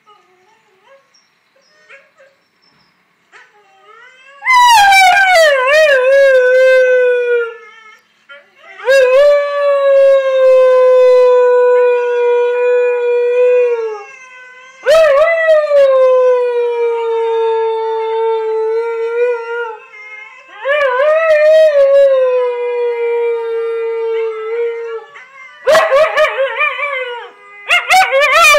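A husky howling, or 'singing': four long howls, each wavering at the start and then settling into a held tone that slowly sinks, followed near the end by shorter, broken howls.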